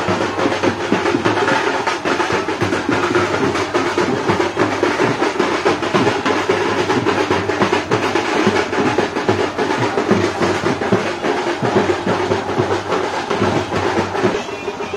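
Procession music led by drums: dense, fast drum strokes over a loud band.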